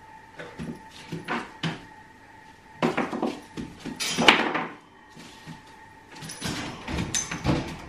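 A husky puppy moving about its wire playpen and nosing and batting a small treat cube across the tarp floor: a run of short knocks, scrapes and clatters, the loudest about four seconds in.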